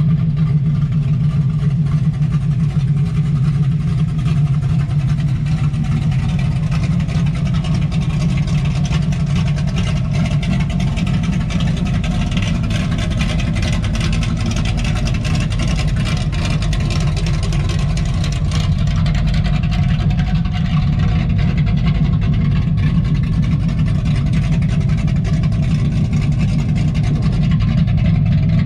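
1970 Dodge Coronet's 440 Six Pack V8 idling steadily through open exhaust cutouts, a loud, even low rumble.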